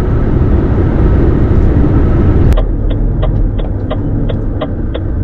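Lorry cab interior: engine and road noise while driving, dropping suddenly about halfway in to a quieter engine hum. The turn indicator then clicks steadily, about three clicks a second.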